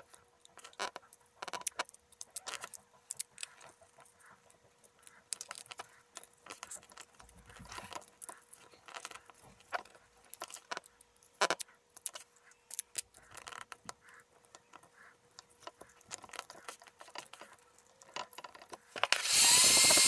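Sped-up small clicks, taps and scrapes of hands and a tool working carbon fibre vinyl wrap on a plastic steering-wheel button housing. Near the end a heat gun blows loudly for about a second and a half.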